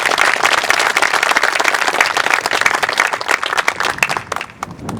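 Audience applauding, a crowd's dense clapping that thins out and dies away near the end.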